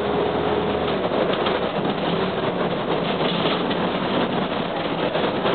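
Cabin sound of a 1998 UD (Nissan Diesel) KC-UA460LSN two-step city bus under way: diesel engine and road noise, with a steady whine that fades out about a second in.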